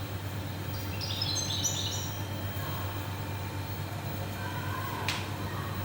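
A short phrase of high bird-like chirps about a second in, over a steady low hum and hiss, with one sharp click about five seconds in.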